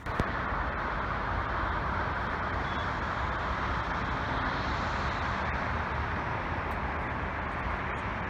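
Steady rushing road noise of a vehicle on the move, with a low rumble underneath, starting abruptly and holding even.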